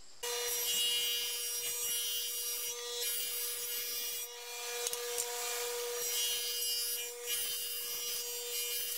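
Table saw running with a steady whine as a cedar board is fed along the fence over a partly raised blade, cutting a rabbet for a shiplap joint along the board's edge. The whine starts suddenly about a quarter second in.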